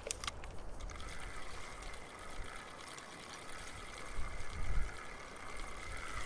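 Lake water lapping and trickling among shoreline rocks, with wind gusting on the microphone about four and a half seconds in. A faint steady high-pitched tone sounds from about a second in.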